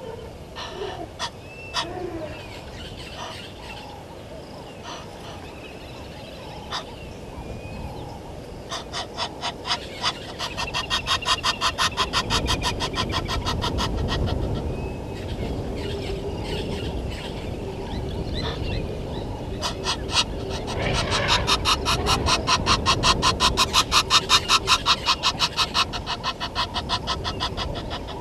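A bird calling in two long runs of rapid, evenly paced notes, several a second, each run swelling in loudness and then fading.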